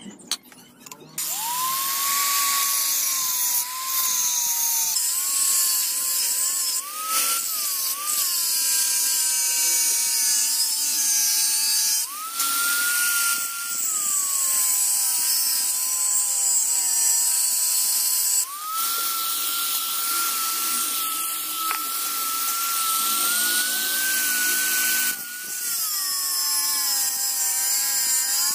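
Power grinder grinding through high-speed steel (HSS) knife stock, starting about a second in: the motor's whine sags in pitch as the tool bites and rises again when eased off, over a steady grinding hiss.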